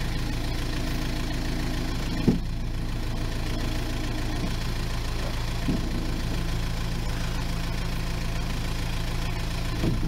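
Kubota M7040 tractor's diesel engine idling steadily, with a single sharp knock about two seconds in.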